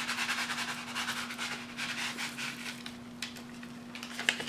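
Foil packet of Lipton Recipe Secrets dry soup mix crinkling and rustling as it is shaken out, the dry mix pattering onto raw ground beef. A couple of sharper ticks come near the end, over a low steady hum.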